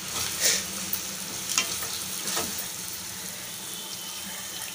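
Boiled eggs in an onion-chilli masala sizzling in a stainless steel pan, with a steady frying hiss. A metal ladle stirs and scrapes the pan three times in the first half.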